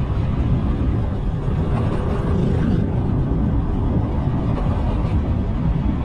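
Steady low rumble of wind buffeting the microphone together with road noise from a bike riding along a paved road.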